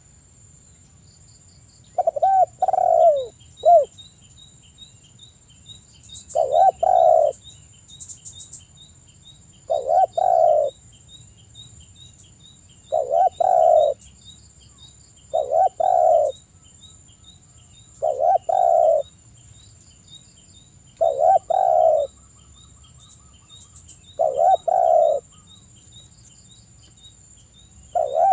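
Spotted dove cooing: a two-part coo repeated about every three seconds, about nine phrases in all. A faint, fast high-pitched ticking runs behind it.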